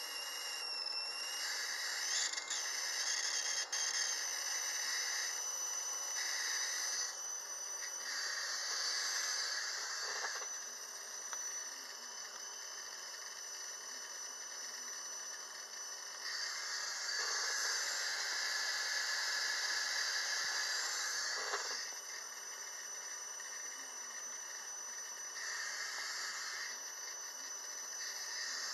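Spark plug firing continuously from a 12-volt ignition coil switched by a MOSFET, the rapid sparks making a steady noisy buzz with a thin high whine. The sound grows louder and softer several times.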